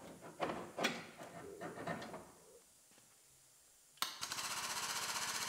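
Metal clinks and knocks as a pull clamp and chain are set on a damaged quarter panel. About four seconds in, a frame-straightening machine's pump starts suddenly and runs with a steady, rapid pulsing noise, tensioning the chain for the pull.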